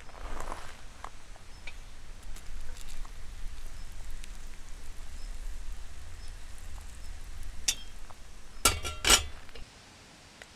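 Liquid poured in a steady stream into a metal camp cup over a grilled rice ball, with scattered light clicks. Two or three sharp metallic clinks come near the end, and the sound cuts off suddenly to a quiet background.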